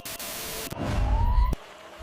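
Dramatic background music over a low, heavy rumble, with a tone that rises in pitch and then cuts off abruptly about one and a half seconds in.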